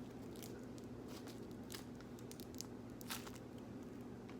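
Faint handling noise: a few scattered light taps and crinkles from a squishy toy and its plastic packaging being handled, over a low steady hum.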